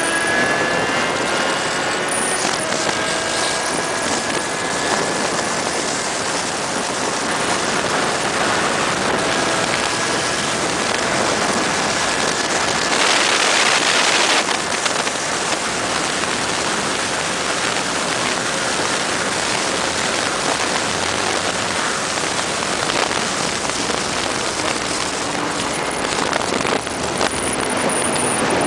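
Steady rush of wind at high speed on a Yamaha XJ6 motorcycle, with the engine's note faint beneath it in the first ten seconds or so. The wind swells briefly about halfway through.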